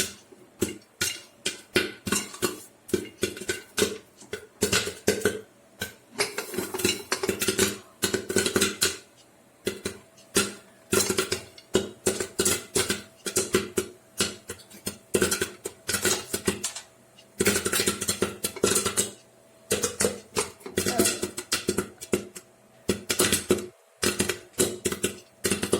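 Popcorn kernels popping inside a covered cooker, a dense, irregular rattle of sharp clicks and knocks as popped corn strikes the metal lid.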